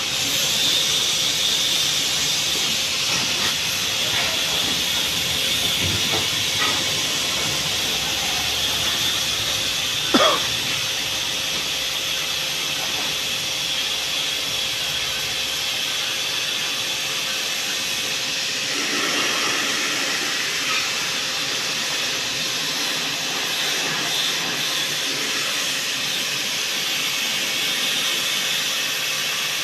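Steady high-pitched hiss, with one brief louder sound that rises in pitch about ten seconds in.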